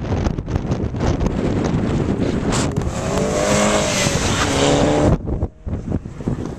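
Wind buffeting the microphone, then a Volkswagen Golf hatchback's engine running hard as the car drives a cone course close by, its pitch rising and then easing a little. The sound cuts off suddenly about five seconds in.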